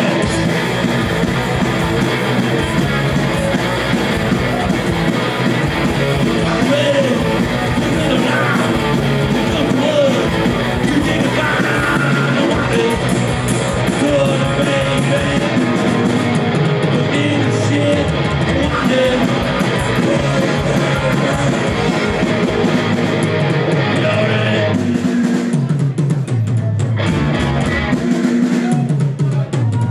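Punk band playing live: electric guitar and drum kit with vocals over them.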